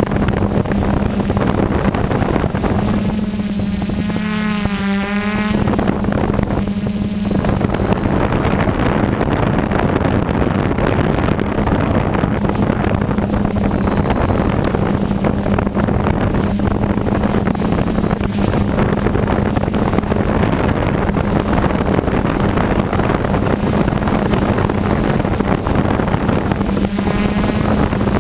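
Multirotor drone's electric motors and propellers buzzing steadily in flight, heard from the camera it carries, over a constant rush of air. The motor pitch wavers up and down for a few seconds about four seconds in and again near the end as the craft manoeuvres.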